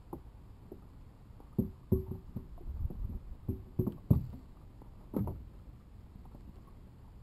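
A run of irregular hollow knocks and clatters, about ten over four seconds, the loudest about two seconds in and about four seconds in: fishing gear being handled and bumped against a plastic fishing kayak.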